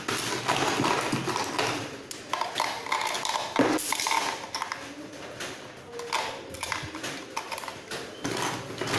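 AA batteries being pushed into the plastic battery compartment of an RC car transmitter: repeated clicks and taps with plastic handling noise, the loudest click a little past three and a half seconds in.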